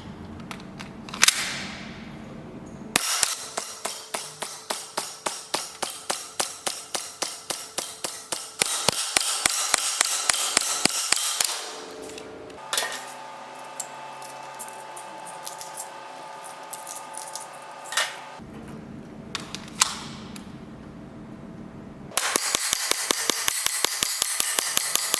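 G&G GPM1911 CP gas blowback airsoft pistol firing: one shot, then long strings of rapid shots of about three a second, each a sharp snap of the slide cycling, stopping and starting again. The pistol is being shot through its magazines on a single gas fill.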